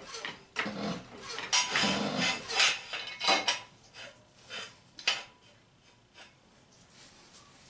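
Steel jack stand clanking and rattling as it is set in place under a raised car: a quick run of metal knocks over the first few seconds, then a few single knocks that fade out.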